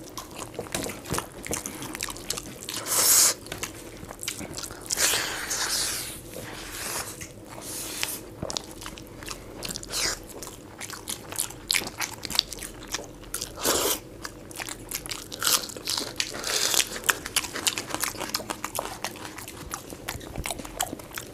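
Two people eating rice and curry by hand, close-miked: chewing and mouth smacks with fingers working the food on steel plates, heard as a run of short, irregular clicks and smacks.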